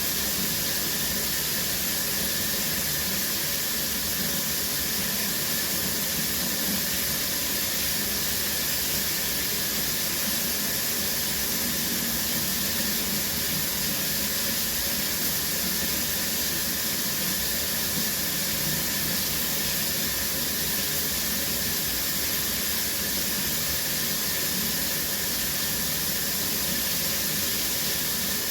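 Shower running steadily: water spraying from the showerhead and falling in a constant hiss.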